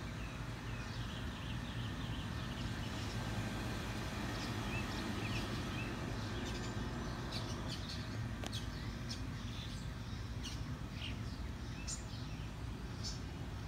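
Small birds chirping in short, scattered calls over a steady low background rumble, the chirps coming more often from about halfway through.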